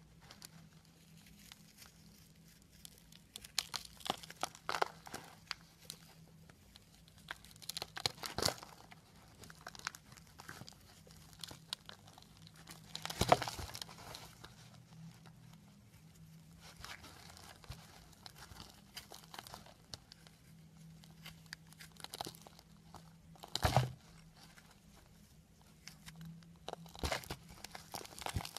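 A knife blade carving and scraping into a crumbly block of pressed soap pieces, making irregular crunching, crackling scrapes as chunks and shavings break away. The loudest crunch comes about halfway through, with another strong one near the three-quarter mark.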